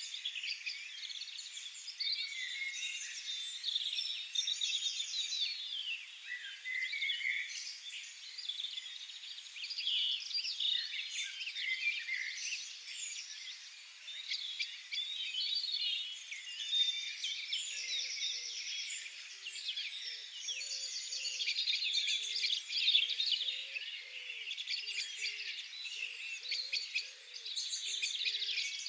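Several songbirds singing at once, a dense, continuous chorus of chirps and trills. About two-thirds of the way through, a low hooting call joins in, repeated in short notes.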